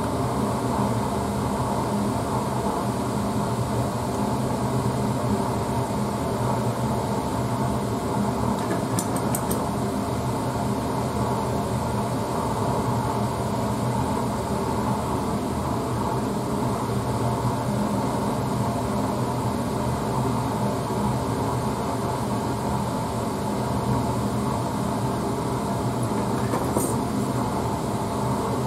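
Steady rushing noise of a lit Bunsen burner flame heating a test tube, with the fume hood's ventilation running under it; a couple of faint clicks.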